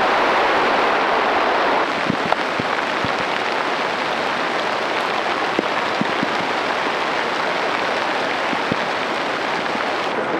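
Steady heavy rain hissing, with scattered louder drops tapping; the rain eases slightly about two seconds in.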